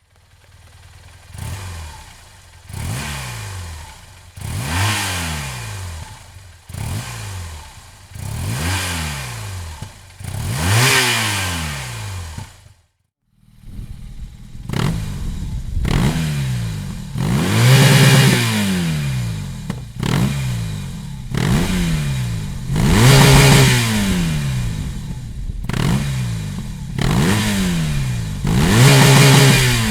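2008 BMW R 1200 GS boxer-twin engine breathing through a Dominator aftermarket exhaust, idling and revved in repeated quick throttle blips. Each blip rises and falls in pitch, about one every two seconds. The sound cuts out briefly a little under halfway through, then the blips resume louder.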